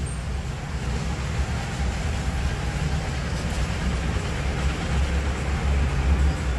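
Steady low rumble and hiss of background noise, with no distinct events.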